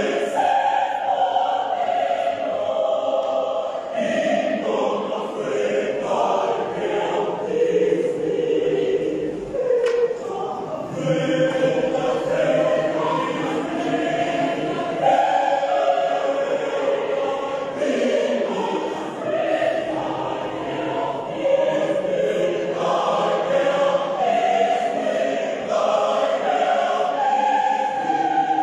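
Mixed-voice gospel choir of women and men singing together in continuous harmony.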